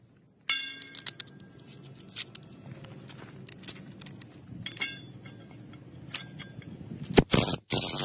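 Sharp metallic clinks and rattles as a steel screw-type concrete anchor and a galvanised steel post base are handled. About a second before the end, a cordless impact driver starts hammering loudly, driving the anchor into the concrete.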